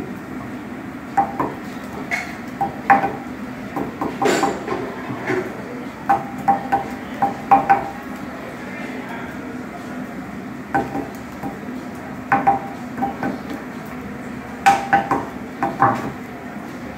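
Metal spatulas clanking and scraping on a hibachi griddle, in irregular flurries of ringing clacks, over a steady low hum.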